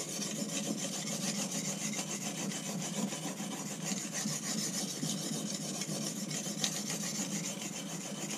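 Steel cleaver blade scraping back and forth under heavy pressure on an oiled soft Arkansas sharpening stone: a steady rasp as the stone's surface is deliberately worn and glazed with steel swarf.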